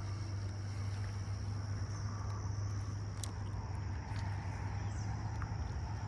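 Insects, crickets among them, chirping in a steady high drone over a strong, steady low hum, with a few faint ticks.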